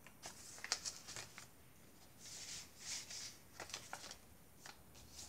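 Faint rustling and soft clicks of paper and card pages being handled: a large fold-out page is folded closed and the pages of a handmade junk journal are turned, with a few longer swishes in the middle.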